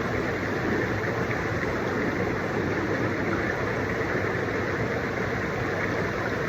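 Hot tub jets churning the water: a steady, loud rushing and rumbling.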